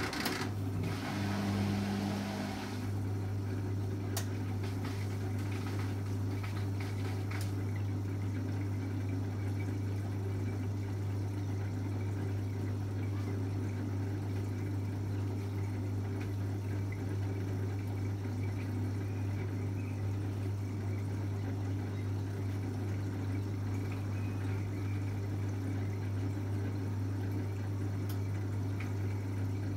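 Beko BKY 2317 B washing machine starting to move water, with the drum at rest. A rush of water begins suddenly and fades after about three seconds, then a steady electric hum carries on.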